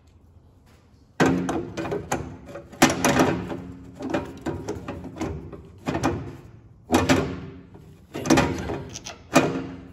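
Starter motor being worked into a tight hole in a midplate and bellhousing, its metal case knocking and scraping against the edge of the opening. A series of sharp clanks with a brief ring starts about a second in and comes roughly once a second.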